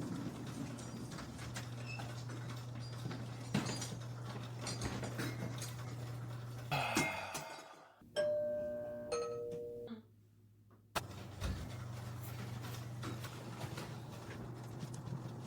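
A two-note ding-dong chime, a higher note followed by a lower one, about eight seconds in. Around it are a steady low hum with scattered small clicks and taps, and a short rustling clatter just before the chime.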